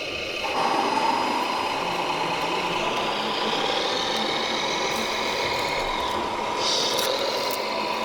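Radio-controlled model construction vehicles running, a steady mechanical whine from their motors and gearboxes that sets in about half a second in, with a brief hiss near the end.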